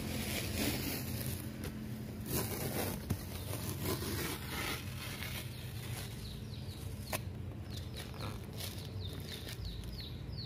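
Paper masking tape being peeled off a car roof and the end of a roof rail, where it masked a fresh silicone glue line. It makes a dry ripping noise in several long pulls over the first half, with a couple of sharp clicks.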